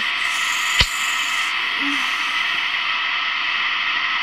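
She-Ra alarm clock's playback hissing steadily between repeats of its wake-up message, with one sharp click about a second in.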